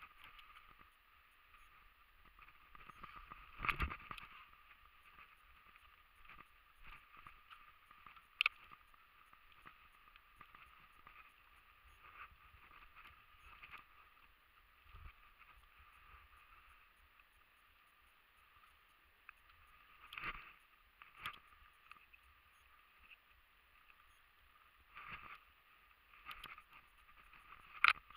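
Faint rustling and footsteps of someone moving through undergrowth over a steady low hiss, with a few scattered short knocks.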